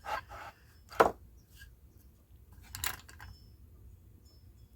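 Metal hand tools clicking and tapping against an engine part as pressure is worked onto the Tecumseh governor to pull it off. There is one sharp click about a second in, a smaller one near three seconds, and light taps at the start.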